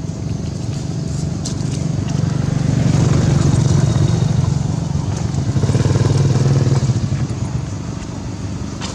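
A motor vehicle engine running close by, growing louder for a few seconds then fading, as when a vehicle passes.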